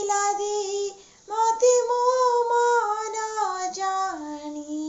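A young woman singing an Odia song solo, with no accompaniment. She holds one note, pauses for breath about a second in, then sings a longer phrase that steps down in pitch and ends on a held low note.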